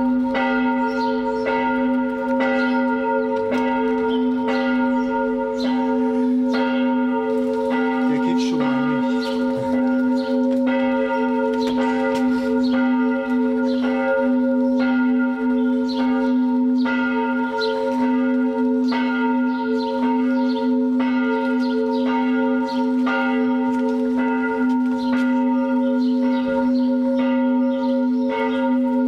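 Church bells ringing a continuous peal: several bells struck one after another in quick succession, their tones overlapping into a steady ringing hum.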